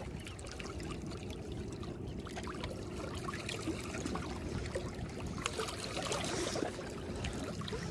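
Water sloshing and trickling with small irregular splashes as a freshly caught croaker is swished through shallow water at the rocks to rinse it, busier in the second half.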